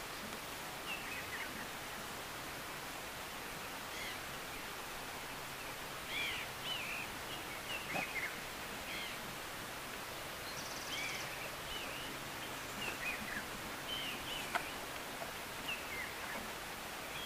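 Outdoor bush ambience: a steady background hiss with scattered short, high chirping calls throughout, a brief buzzy trill a little past the middle, and a single sharp click about three-quarters of the way through.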